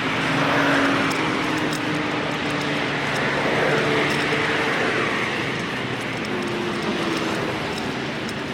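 Road traffic: vehicles passing, the noise swelling and fading twice.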